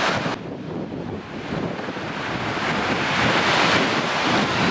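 Stormy Black Sea surf rolling in and breaking on the beach, the noise of the waves swelling from about a second in, with wind on the microphone.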